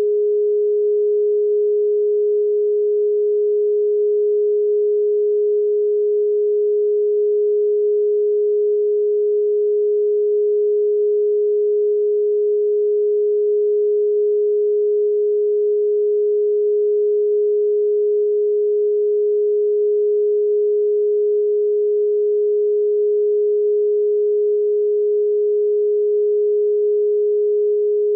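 Solfeggio meditation tone: a single steady, unchanging mid-pitched electronic sine tone.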